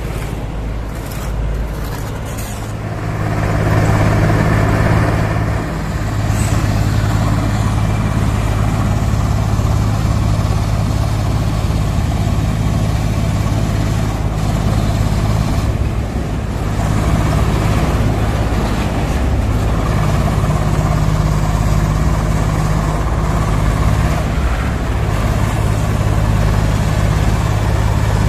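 Wirtgen cold milling machine running, a steady heavy diesel hum with the grinding of its cutter drum milling off the old road asphalt. It grows louder about three seconds in and then holds.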